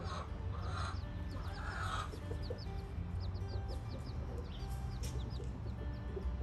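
Backyard chickens clucking, loudest in the first two seconds, with small birds giving many quick high chirps over a steady low rumble.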